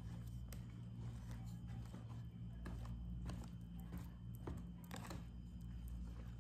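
A steady low hum with scattered light clicks and taps.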